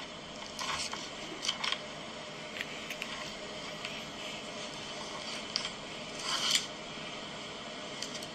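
Scattered soft rustles and light clicks, about half a dozen, over a steady background hiss.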